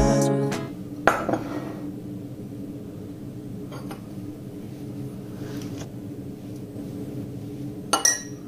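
Dishes and glassware clinking as they are handled: a sharp clink about a second in, a couple of faint ones in the middle and a louder clatter near the end, over a low steady hum.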